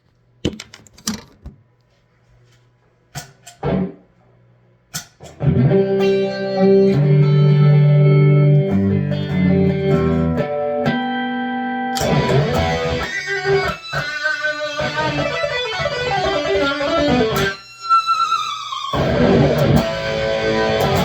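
Electric guitar played through a PRS MT15 tube amp head: a few sparse plucks and muted string clicks, then sustained chords and notes from about five seconds in, turning to a denser, brighter tone about twelve seconds in, with falling slides near the end. In the gaps between notes only a faint low hum remains, which the owner calls quiet as can be.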